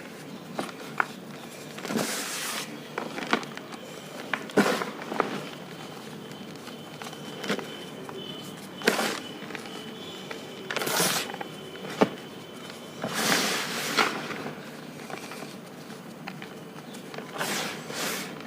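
Hands squeezing and crumbling clumps of blue-dyed powder: soft crunches every few seconds, with small crisp crackles in between.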